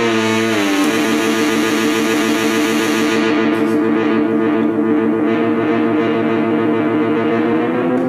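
Moog Mother-32 semi-modular analog synthesizer playing one continuous buzzy tone. Its pitch slides down about a second in and then holds steady, and the bright top of the tone fades away after about three seconds as the knobs are turned.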